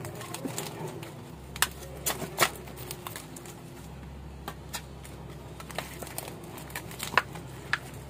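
Scattered crackles and sharp snaps of snake plant leaves being pulled and stripped by hand in a pot, the plants hard to pull out because of their dense roots. A low steady hum runs underneath.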